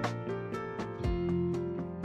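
Instrumental background music with a steady beat, a low thump falling about once a second.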